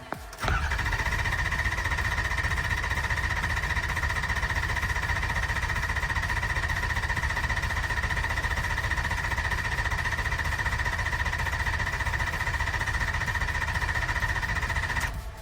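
Starter motor cranking a 2007 Ford F450's 6.0 Power Stroke V8 diesel for about 14 seconds without it firing, a steady whine over the churning of the engine, stopping abruptly near the end. A crank-no-start while injector control (high-pressure oil) pressure is still building after a broken stand pipe O-ring was replaced.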